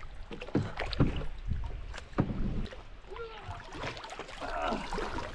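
Water splashing and lapping around a paddleboard, with a few sharp knocks on the board.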